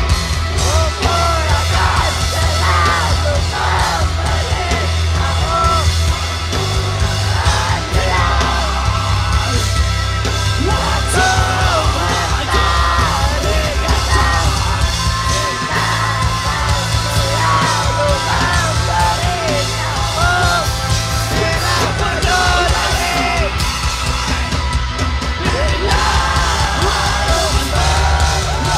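A live rock band playing loud through a concert PA, with electric guitars, a heavy bass line and a lead vocal.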